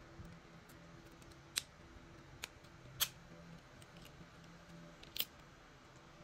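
Four short, sharp clicks of a mobile phone's casing parts being handled and pressed together, the loudest near the middle.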